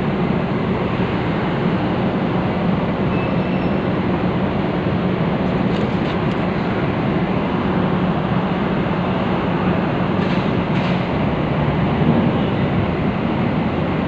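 Container ship's engines and machinery running, a loud steady rumble with a low drone, heard from close alongside the hull as the ship moves past.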